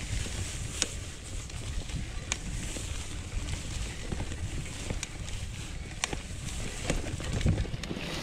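Polygon Bend R2 gravel bike rolling through tall grass: a steady rumble of wind and tyre noise on the handlebar-mounted action camera, with a hiss of grass brushing past and a few sharp clicks.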